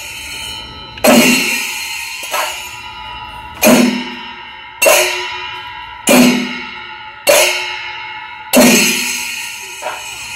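Rhythmic metallic percussion: a clanging stroke about every 1.2 seconds, each ringing on and dying away slowly, with a short low thud at each stroke.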